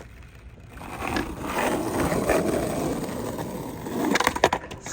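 Skateboard wheels rolling on wet pavement, the rumble building from about a second in. Near the end come a few sharp clacks of the board: the tail popping for an ollie and the board landing.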